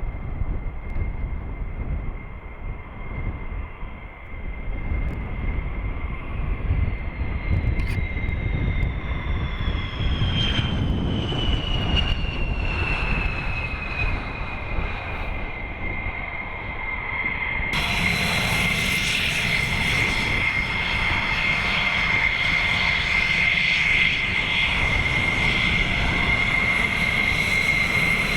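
Fighter jet engines running, with a steady high whine over a low rumble. A second whine falls slowly in pitch through the first half. Past the middle the sound turns suddenly brighter and louder, a steady jet whine with strong hiss.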